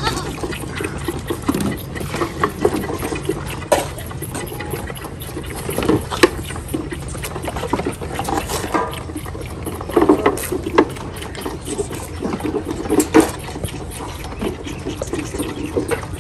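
Several goat kids suckling milk from bottle nipples on a feeding stand: irregular wet sucking and gurgling, with sharp clicks now and then.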